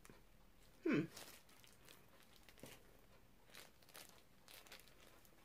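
Faint rustling as a pair of sheet hand-mask gloves is peeled off the hands, with one short falling vocal sound about a second in.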